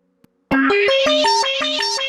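A mobile phone alarm tone starts about half a second in: a quick, repeating arpeggio of plucked, guitar-like notes, about six notes a second.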